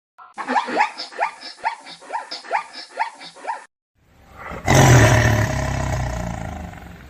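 A quick run of short rising chirps, about three or four a second, from one animal; after a brief silence a second animal gives a loud, rough roar with a deep rumble that slowly fades out.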